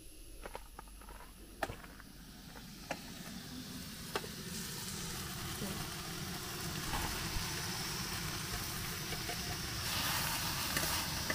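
Masala sizzling in a metal kadai, growing gradually louder, with a few light clicks of a steel ladle against a paper plate and the pan in the first few seconds as fried pointed gourd pieces are spooned in.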